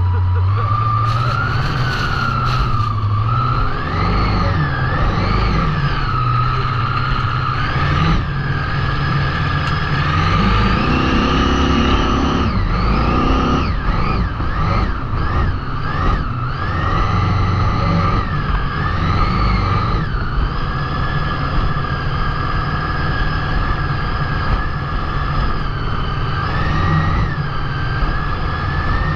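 Big-block Chevy V8 jet boat engine running at speed, its pitch rising and falling again and again for the first twenty seconds, then holding steadier, over a steady rush of water and wind.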